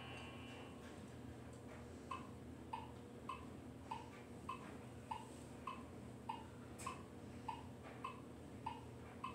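Animated Christmas tree ornament ticking: a quiet, even tick-tock, about three ticks every two seconds, starting about two seconds in, with one sharper click near the end.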